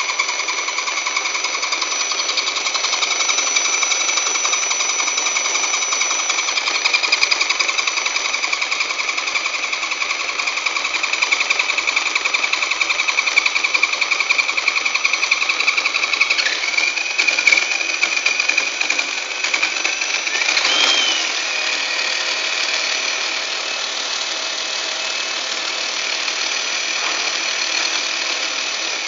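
Axial SCX10 Honcho RC crawler's electric motor and drivetrain running with the wheels off the ground: a steady gear whine with a fast, even rattle from the front axle, which is jumping for a reason the owner cannot find. The whine's pitch shifts briefly about two-thirds of the way in.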